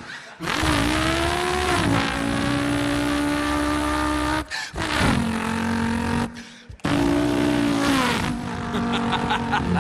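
A man imitating a racing car engine with his mouth: a held, buzzing engine note that drops in pitch twice like a gear change, broken by two short pauses.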